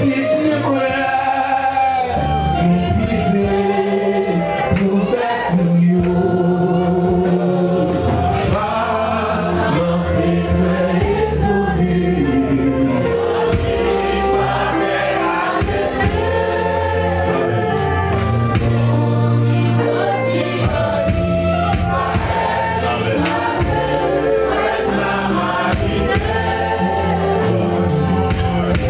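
Gospel music: a choir singing over sustained low accompaniment notes, continuously at a steady level.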